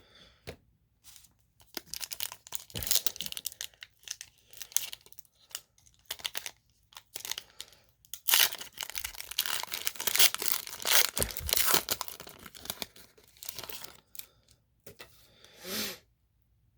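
A baseball card pack's wrapper being torn open and crinkled, in irregular bursts of tearing and rustling that are busiest in the middle of the stretch.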